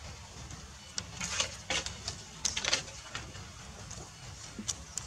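Macaques scuffling as they wrestle, with a string of short scratchy noises, about six in all.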